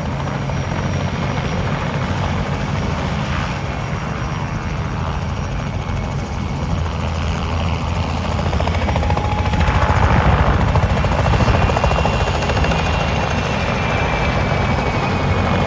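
Mi-2 helicopter's rotor and twin turboshaft engines running steadily as it flies low, growing louder about two-thirds of the way through, with a faint high turbine whine.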